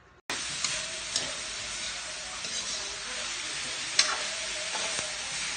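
Pancit noodles and vegetables sizzling in a pan as they are stir-fried. A spatula clicks against the pan a few times, loudest about four seconds in. The sizzle starts suddenly just after the beginning.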